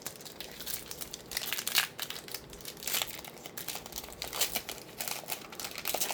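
Plastic wrapper of a trading card pack being torn open and crinkled, in irregular crackling bursts.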